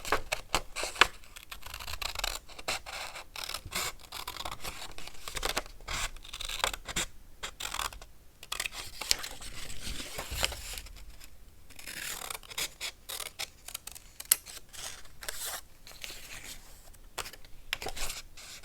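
Paper being handled and cut for a collage: an irregular run of crisp snips, scrapes and rustles.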